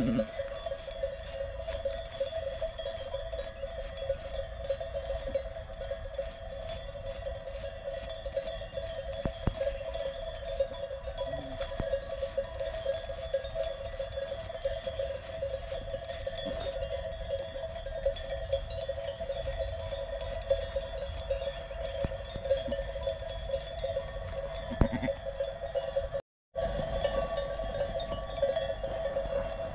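Bells on a flock of sheep jangling continuously in a dense, shimmering ring. A sheep bleats near the end.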